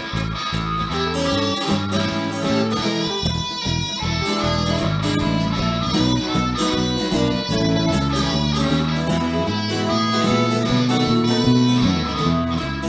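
Live blues band playing a blues in E major: acoustic guitar, electric bass and keyboard, with a harmonica playing over them.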